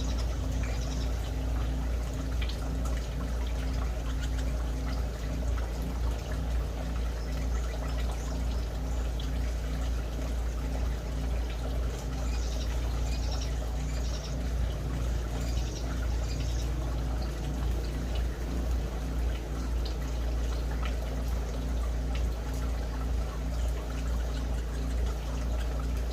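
Small aviary birds, canaries and zebra finches, giving short high calls near the start and in a cluster about halfway through, over a steady trickling-water-like noise and low rumble.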